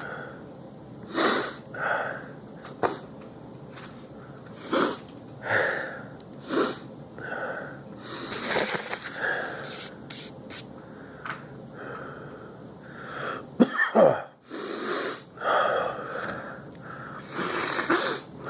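A man sniffing hard through his nose again and again, snorting ground pepper to bring on a sneeze, in short irregular breaths. A louder, sharper burst comes about 14 seconds in.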